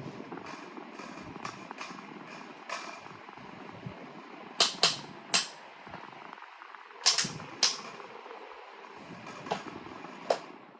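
Pelonis table fan running on low, with its loose front badge rattling against the grille in irregular sharp clicks, several in quick clusters around the middle and later on. The rattle is the sign of the loose badge.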